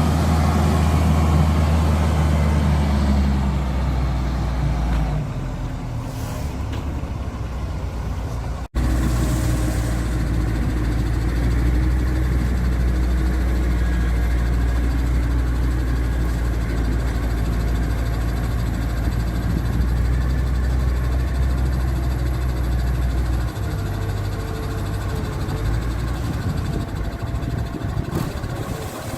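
Heavy diesel engine of a PPM Terex A600 mobile crane running steadily. There is a short break about nine seconds in, and the engine note shifts lower a few times.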